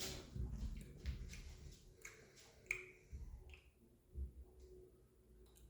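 Faint, scattered clicks and a few soft knocks of small objects being handled.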